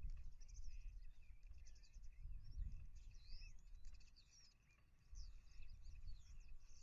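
Small birds chirping and chattering in a busy mix of quick high calls and short sweeping notes, over a low rumble.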